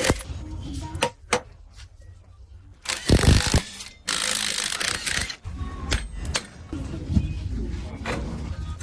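E-rickshaw making irregular mechanical clicking and rattling over a low rumble: the unwanted noise being shown. A loud rushing noise comes in about three seconds in and lasts about two seconds.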